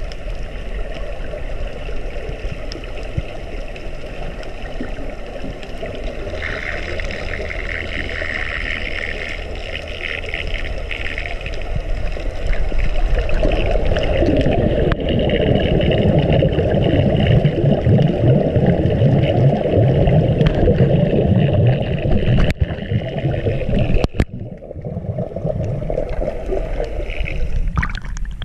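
Underwater sound heard through a camera's waterproof housing: a steady muffled rush of water with gurgling air bubbles, growing louder and rougher about halfway through.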